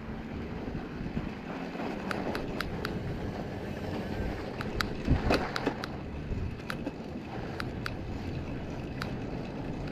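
Mountain bike rolling through snow: a steady rushing noise of tyres and wind, with scattered sharp ticks and a dull thump about halfway through.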